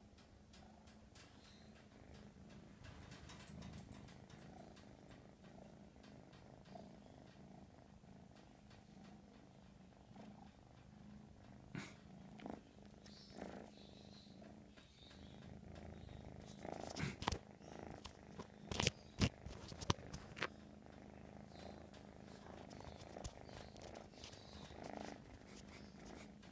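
American Shorthair kitten purring steadily and continuously. Several sharp knocks break in during the second half, loudest about 17 to 20 seconds in.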